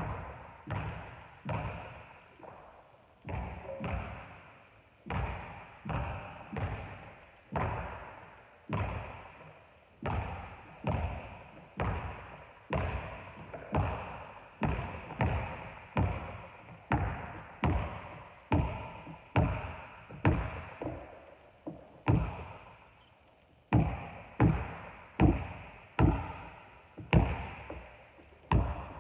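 Basketball dribbled on a hardwood gym floor, a steady run of bounces about one or two a second, each ringing on in the large hall. The bounces pause briefly a little past twenty seconds, then come back louder.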